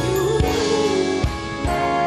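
Live band playing a slow soul song: sustained melody notes over a few drum hits.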